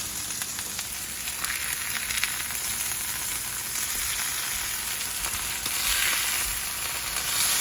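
Marinated skirt steak sizzling on a hot cast iron griddle, a steady frying hiss with fine spitting crackles.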